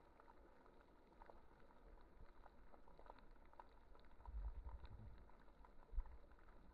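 Faint underwater reef ambience: scattered small crackling clicks, with a low rumble about four seconds in and a single dull thump near the end.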